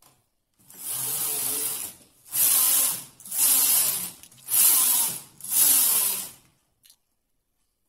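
Carriage of a punch-card hand knitting machine pushed back and forth across the needle bed, knitting rows. It makes five passes, each a clattering rattle of about a second. The first pass is a little longer and quieter.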